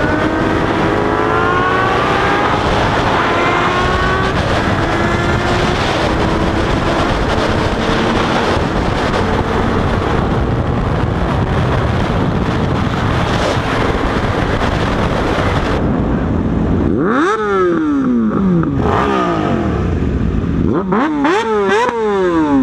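Sport motorcycle engines accelerating, rising in pitch through the gears, then a steady rush of wind and engine at speed. In the last few seconds the engines are revved hard in repeated sharp throttle blips that rise and fall quickly.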